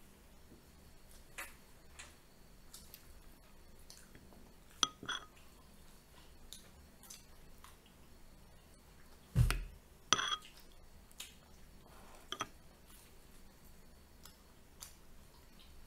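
Metal spoon clinking against ceramic soup bowls in a few short, ringing clinks, with a dull thump about nine seconds in followed closely by the loudest clink. Faint scattered clicks of eating fill the gaps.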